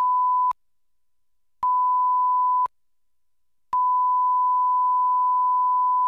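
A steady 1 kHz test tone passing through a Mackie Big Knob Passive monitor controller cuts out and back in twice as its source select is toggled between A and B. A little snap is heard at each switch, the click of the passive switching getting into the recorded signal.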